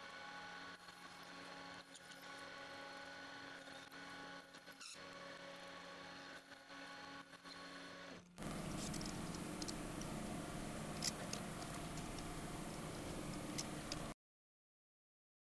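Metal lathe running with a steady hum of fixed tones and brief very high squeaks. About eight seconds in, a cut brings a louder, noisier machine sound with a few sharp clicks, and near the end the sound drops out entirely.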